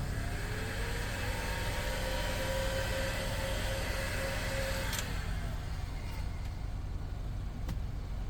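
Heat gun switched on, its fan motor whine rising and then holding steady with a rush of blown air while it heats the vinyl repair, then clicked off about five seconds in, the whine falling away as the motor spins down.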